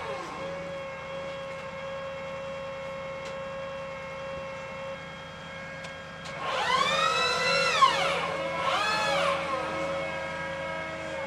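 M270 MLRS launcher-loader module drive whining as the rocket pod is moved: a falling whine right at the start, then two whines about six and eight and a half seconds in that rise in pitch, hold and fall away. Under it runs the steady hum of the idling tracked carrier.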